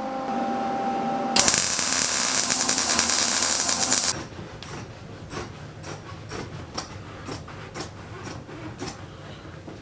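A power tool runs with a steady whine, then much louder and rougher for about three seconds, and stops. A series of sharp clicks follows, roughly two a second.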